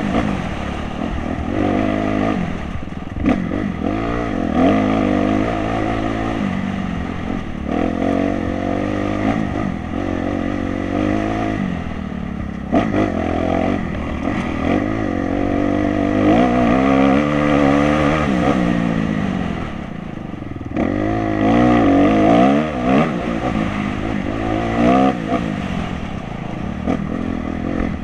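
Dirt bike engine revving up and down as it is ridden hard over a rough trail, its pitch climbing and dropping again and again through throttle and gear changes. Occasional clattering knocks come through over the engine.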